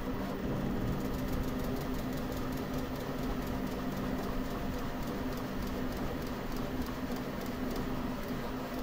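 Enclosed Bambu Lab 3D printer running a print: its stepper motors whir in shifting steady tones over a constant fan hum, with fine rapid ticking from the print head's quick moves.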